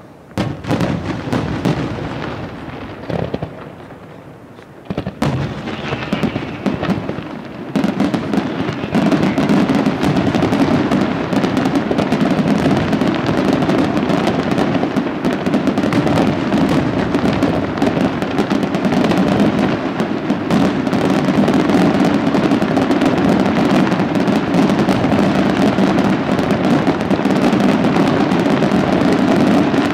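Aerial firework shells bursting in a display: separate bangs at first, then from about eight seconds in a dense, continuous barrage of bangs and crackle.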